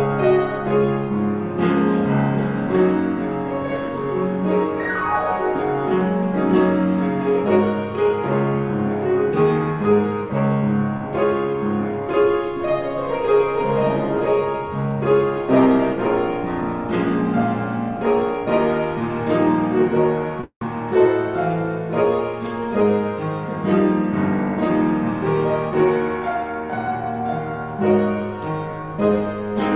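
Slow instrumental piano music with sustained chords and melody. It cuts out for a split second about twenty seconds in.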